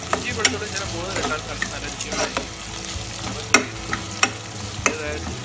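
Sliced onions, green chillies, ginger and garlic sizzling in hot coconut oil, stirred with a metal spoon that scrapes and knocks against the metal pot several times at irregular moments.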